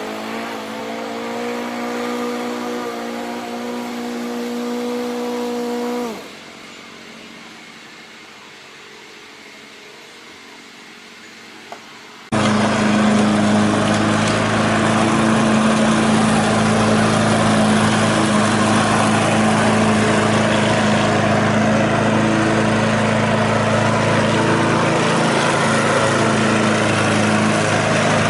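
Small petrol walk-behind lawn mower engine running steadily, stopping about six seconds in. After a quieter stretch with a single click, a mower engine is running steadily again from about twelve seconds in.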